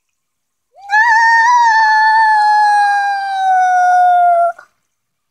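One long, high-pitched wail, held for nearly four seconds, wavering at first and then slowly sinking in pitch before it cuts off.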